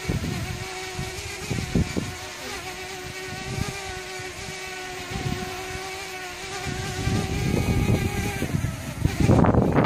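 DJI Mavic Mini's propellers humming steadily as it hovers, with irregular low rumbles of wind buffeting the microphone. Near the end the wind rumble grows louder and the propeller tone fades out.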